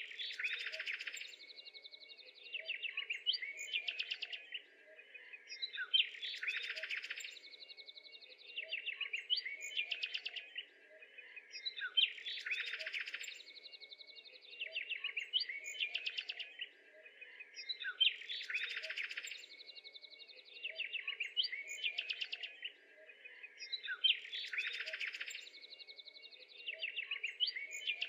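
Small songbirds chirping and twittering, with rapid trills, over a faint low hum. The same six-second stretch of birdsong repeats over and over, as a looped recording does.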